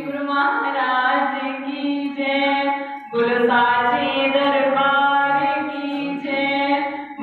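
Devotional bhajan being sung in long, drawn-out held notes, with a short break about three seconds in.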